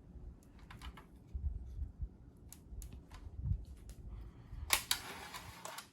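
Light clicks and taps of chopsticks being handled as sushi is picked up, with a louder rustle for about a second near the end.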